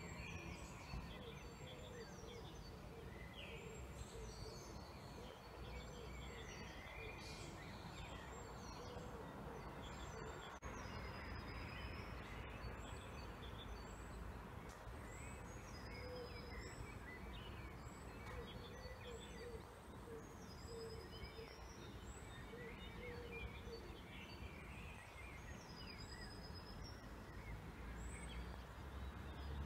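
Faint birdsong: short, high calls repeating every second or two, over a steady low rumble of background noise.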